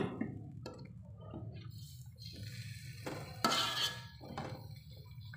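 A metal spatula scraping and clinking against a wok as chicken feet are stirred in a wet chili sauce, in irregular strokes with a sharp clink at the very start and a louder scrape a little past halfway. A steady low hum runs underneath.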